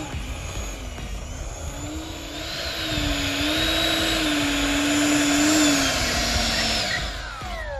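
Freewing Yak-130's 70 mm electric ducted fan whining steadily as the model jet taxis, growing louder as it comes close, then falling in pitch and fading near the end.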